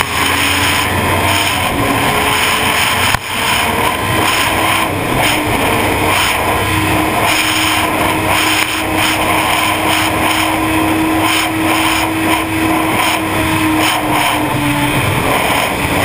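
Sport motorcycle at high speed, above 200 km/h, with engine and heavy wind rush over the microphone. The engine note cuts briefly about three seconds in, as at a gear change, then climbs slowly under acceleration and falls away near the end as the bike slows.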